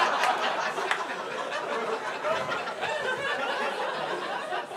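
Comedy club audience laughing after a punchline, the laughter tailing off into scattered chuckles.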